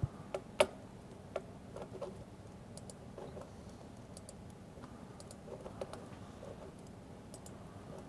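Irregular clicks and taps of a computer keyboard and mouse, a few sharper ones in the first two seconds, then sparse light ticks.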